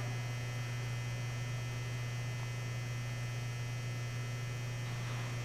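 Steady electrical mains hum, low and unchanging, with fine steady tones above it and no other distinct sound.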